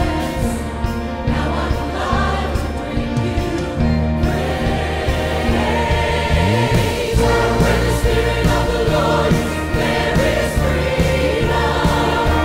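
Church choir singing a hymn with instrumental accompaniment, held bass notes changing every second or two beneath the voices.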